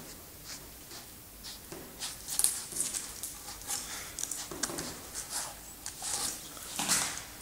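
A mastiff close by, making an irregular run of soft scuffs and clicks.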